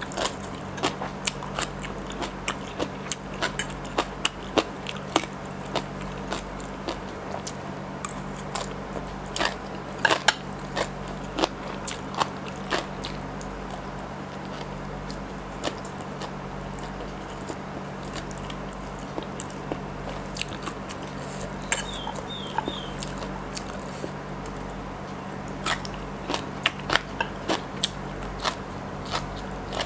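Close-miked ASMR eating of papaya salad and crab sticks: biting and chewing, with many sharp crunches and wet mouth clicks. The crunching thins out in the middle and picks up again near the end. A steady low hum runs underneath.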